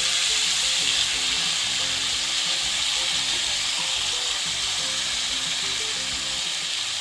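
Chopped spring onions sizzling in hot spiced oil in a pan just after being tipped in: a steady, loud sizzle that eases slightly toward the end.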